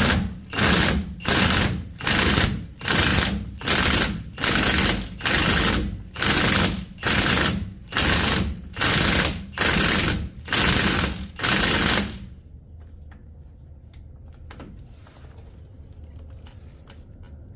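Impact wrench hammering on a 9/16 socket in about fifteen short trigger bursts, roughly one every 0.8 s, stopping about twelve seconds in. It is working at low power on the rear axle flange bolts, which haven't been taken off in a while and are slow to break loose.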